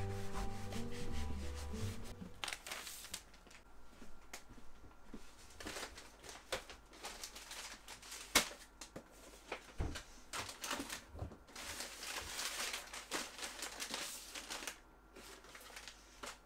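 Wrapping paper rustling and crinkling as small packages are wrapped by hand, with light knocks of things set down on a wooden countertop.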